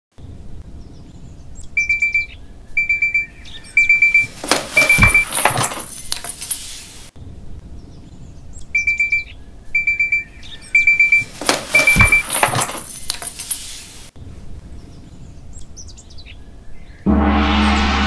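Digital alarm clock beeping in groups of quick, high beeps about a second apart, each series cut off by a thump and a burst of loud rustling. The pattern plays twice over faint bird chirps, and a sustained gong-like musical swell starts near the end.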